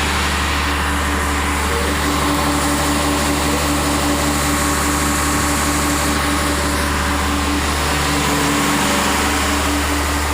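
Steady mechanical hum inside an Ambarawa Ekspres passenger carriage, with a deep drone and a regularly pulsing mid-pitched tone.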